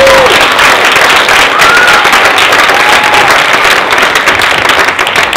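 Theatre audience applauding, with a few voices whooping and cheering through the clapping.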